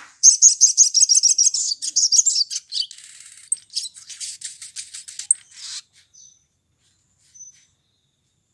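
Male olive-backed sunbird singing: a rapid string of high, sharp chirps, about ten a second, running into a faster, denser trill that stops abruptly about six seconds in, followed by a couple of faint single chirps.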